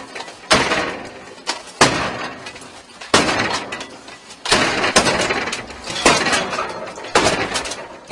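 Repeated heavy blows on a metal entry door, each impact ringing and fading. The blows come roughly once a second while the door holds.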